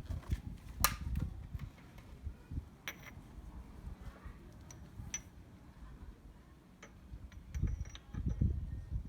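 Scattered sharp clicks and light metallic taps of hand tools working on a supercharger pulley, with low handling thumps that pick up near the end.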